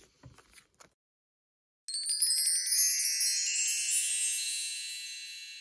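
A bright shimmering chime sound effect, like a wind chime run, that comes in suddenly about two seconds in and slowly fades away. Before it, a few faint clicks from photocards being handled.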